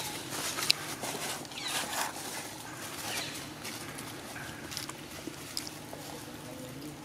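Dry leaf litter rustling and crackling under the feet of long-tailed macaques moving about. A run of sharp clicks falls in the first few seconds, and it thins out after that.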